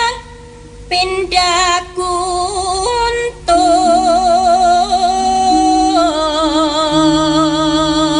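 Javanese gamelan music with a female singer (sinden) holding long, melismatic notes with a wide vibrato over sustained tones from the ensemble. There is a short dip in the singing during the first second before the voice comes back in.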